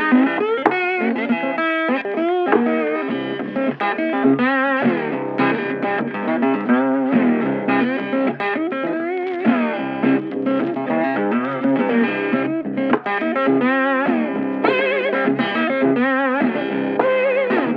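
Background music led by electric guitar, with wavering, bent notes over a steady accompaniment.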